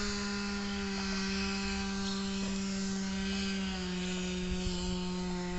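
Chainsaw from building work, running with a steady droning hum whose pitch drops slightly a little past halfway.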